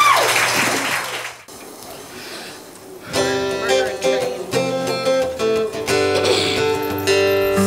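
A short quiet lull, then about three seconds in an acoustic guitar starts strumming a folk-rock song intro, joined by other held instrument notes, played live.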